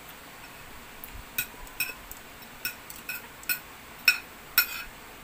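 A metal spoon and fork clinking against a ceramic plate while eating. About seven sharp, ringing clinks, starting about a second and a half in.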